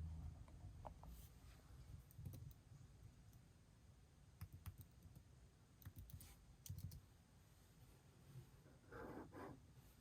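Near silence with faint, irregular clicks from computer input devices being clicked while working through on-screen setup, and a brief soft rustle about nine seconds in.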